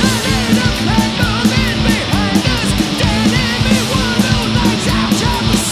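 Heavy metal music playing loudly: distorted guitars and drums keeping a steady beat, under a wavering, bending lead melody.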